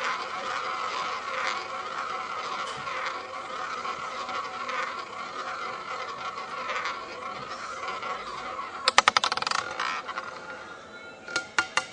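Roulette ball rolling round the spinning wheel with a steady whirr. About nine seconds in there is a fast run of clicks as the ball drops and bounces across the wheel's frets, and another run of clicks near the end as it rattles into a pocket.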